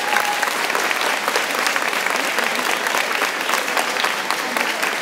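Audience applauding in a gymnasium: dense, steady clapping from many hands, with some cheering and voices mixed in.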